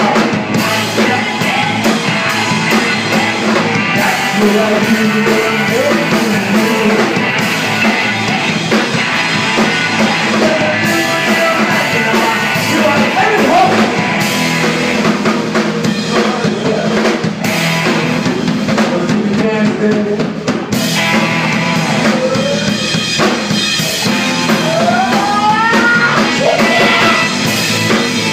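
Live rock band playing: electric guitar, a drum kit and a lead singer over the band.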